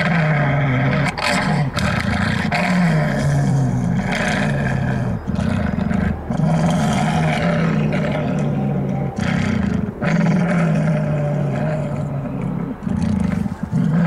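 Halloween demonic-dog prop playing growls and snarls through its speaker: loud, rough growling in rising and falling phrases of a second or two, with short breaks between them.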